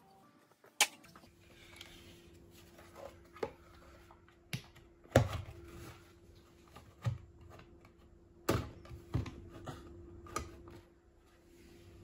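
Scattered sharp clicks and knocks of a hard plastic doorbell chime housing being fitted against a wall and onto its mounting screws, about eight in all, the loudest about five seconds in, over a faint steady hum.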